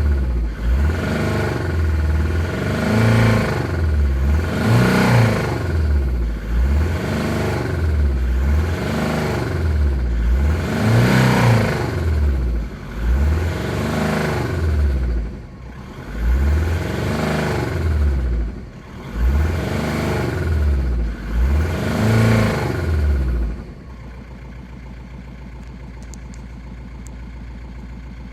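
1.9-litre 130 hp car engine revved in about a dozen quick blips, roughly one every two seconds, each rising and falling in pitch, then dropping back to a steady idle about 24 seconds in. The engine makes a strange noise that the owner has ruled out as coming from the damper pulley or the flywheel.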